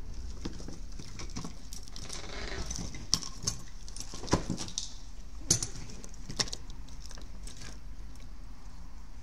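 Wires and small items being handled on a workbench: a rustle, then several sharp clicks and taps spread over a few seconds, over a steady low hum.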